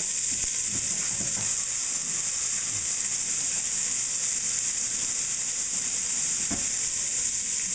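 Bacon ends rendering in a pan, the fat sizzling steadily, ready for the mirepoix to go in. There is a single knock about six and a half seconds in.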